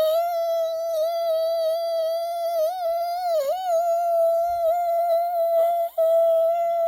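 A person humming one long, steady note as a mouth sound effect; the pitch wavers a few times in the middle and breaks off briefly near the end before it is held again.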